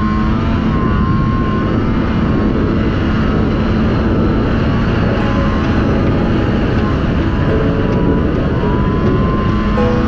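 Snowmobile engine running steadily at cruising speed, with a faint wavering whine over the constant drone of the engine and track.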